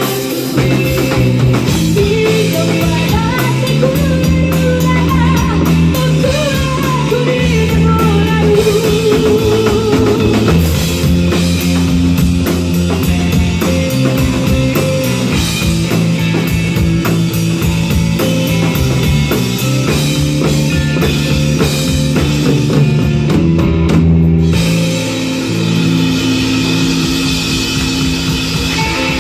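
Live rock band playing the end of a song: electric guitar, bass and a drum kit, with a woman singing in the first part. The drums stop about 24 seconds in, leaving guitar and bass holding a sustained chord.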